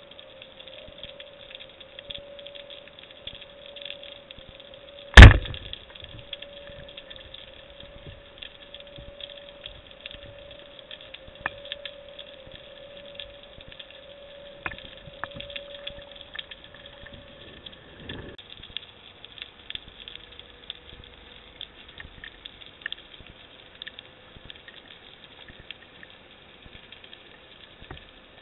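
Underwater sound picked up by a diving camera: a faint crackle of small scattered clicks over a steady tone that drops slightly in pitch about two-thirds of the way through, with one loud sharp crack about five seconds in.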